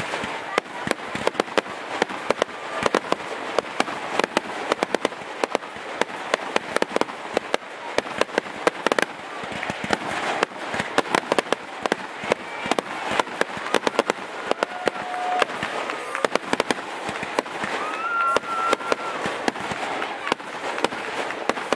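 Fireworks going off in a dense, rapid barrage: many sharp cracks and bangs a second, unbroken throughout, over a crackling haze.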